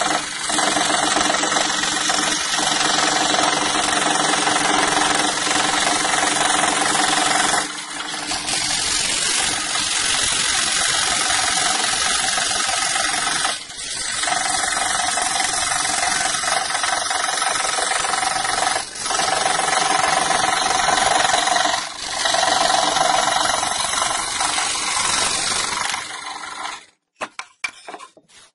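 Scroll saw running, its fine blade cutting through 10 mm birch plywood with a steady mechanical chatter that dips briefly a few times. It stops shortly before the end and is followed by a few faint clicks.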